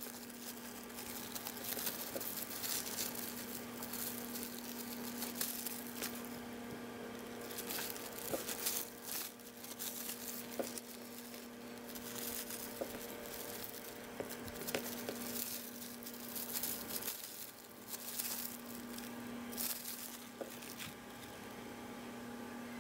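Plastic cling film crinkling and rustling in irregular bursts as hands handle it, over a steady low hum.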